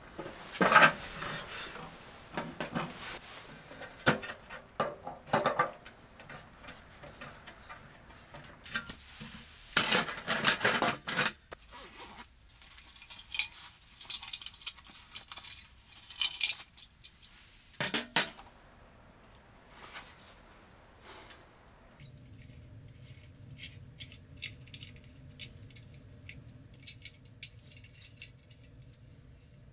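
Metal clinks, scrapes and clatter as a large round metal tray is set down and a small camping gas burner is handled and assembled by hand. The knocks are loudest and busiest in the first two-thirds, then give way to lighter, scattered ticks and clicks.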